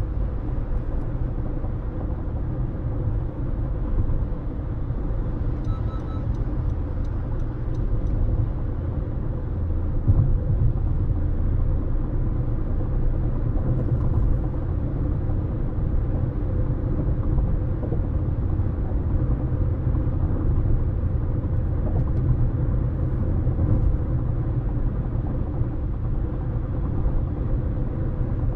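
A car driving at a steady speed, with an even rumble of road and tyre noise and a faint steady hum.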